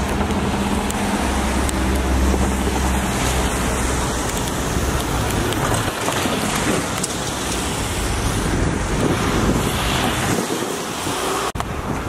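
Road traffic on a town street, a steady noise of engines and tyres, with a heavier low rumble of a vehicle passing close about a second or two in.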